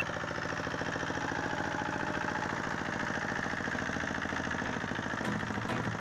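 Zubr 12 hp motor-tractor's single-cylinder diesel engine running steadily under way, with a fast, even knock of its firing strokes.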